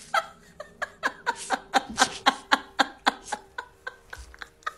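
A woman's stifled, breathy laughter: a rapid run of short puffs of breath, about three or four a second.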